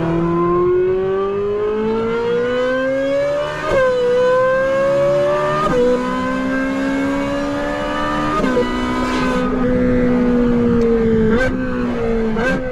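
Ferrari 458's flat-plane V8 through a Brilliant aftermarket exhaust, accelerating at full throttle: the pitch climbs steadily and drops sharply with upshifts about four, six and eight and a half seconds in. After the last shift the note holds and eases off slightly, with two short sharp cracks near the end.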